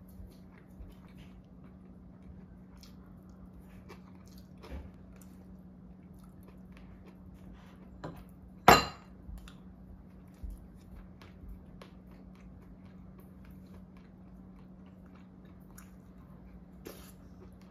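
Someone eating at the table: quiet chewing with small clicks of chopsticks and a spoon against ceramic bowls and plates, and one sharp clink about nine seconds in. A faint steady hum sits underneath.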